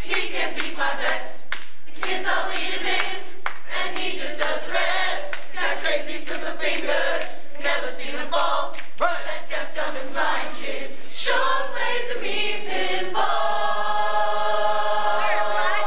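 A large group of teenage voices singing together in chorus without instruments, ending on a long held chord about 13 seconds in.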